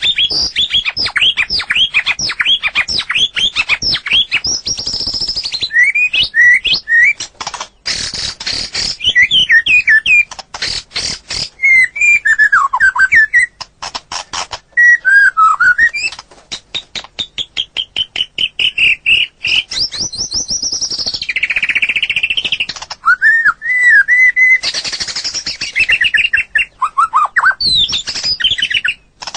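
White-rumped shama (murai batu) singing a long, varied song. It opens with rapid repeated falling notes, about four a second, then moves into harsh fast rattles, looping whistled glides and a long even trill, loud throughout.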